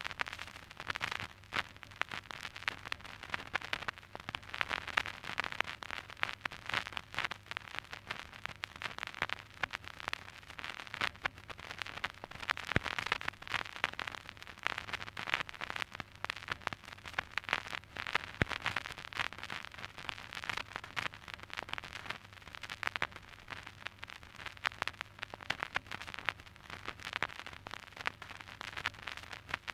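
Old vinyl record surface noise: a dense, irregular crackle of clicks and pops, swelling and easing every few seconds, over a faint steady low hum, with no music.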